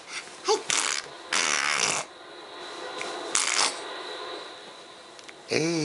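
A baby's short breathy vocal noises, coming in bursts with pauses between, with a brief high squeak about half a second in. A man's voice begins near the end.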